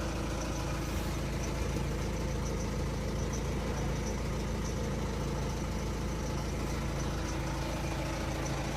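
Peugeot 407's 1.6 HDi four-cylinder diesel engine idling steadily, with the abnormal engine noise its owner has sent in for diagnosis; the cause is not yet known.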